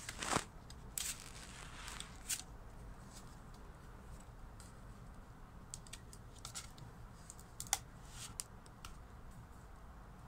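Stiff cardboard pages and pull-tabs of a children's board book being handled: a sharp papery swish about half a second in, then scattered light clicks and rustles as a tab is slid to pop up the cardboard flowers.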